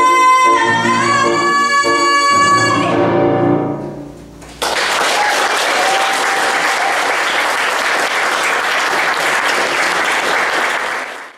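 A female singer holds the last note of a musical-theatre song over instrumental accompaniment. The note steps up slightly about a second in and fades out around three to four seconds in. The audience then bursts into applause that goes on for about seven seconds and cuts off abruptly.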